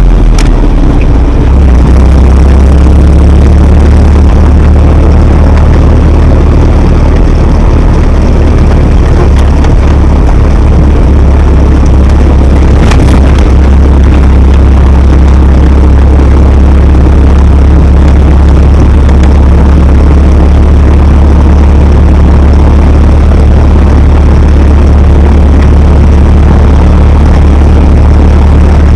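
GAZ-67's four-cylinder flathead engine running steadily as the jeep drives, a loud deep drone heard from inside the open-topped cab, mixed with wind and road noise. A single short knock comes about halfway through.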